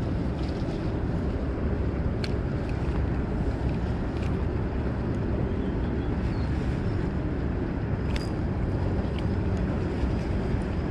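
Wind rumbling on the microphone, with a few faint ticks.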